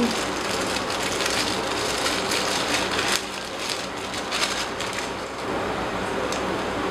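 Mie goreng noodles sizzling steadily in a wok over a very low gas flame, with the crinkle of foil seasoning sachets being squeezed out over them, a run of crackles in the middle.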